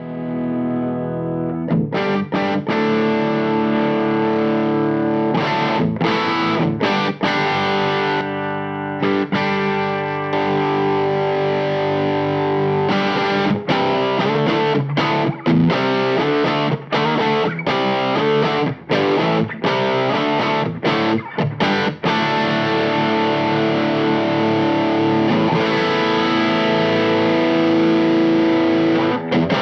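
Electric guitar (Sire H7) played through a Way Huge Green Rhino overdrive pedal into a Marshall Origin 50H amp, giving a distorted, Tube Screamer-style tone. Sustained chords and riffs, cut by many short stops.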